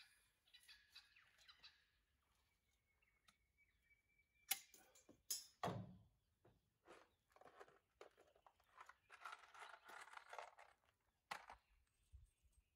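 Faint handling sounds of tools and materials: scattered clicks and knocks, the sharpest about four and a half and five and a half seconds in, and a stretch of scraping around nine to ten seconds in.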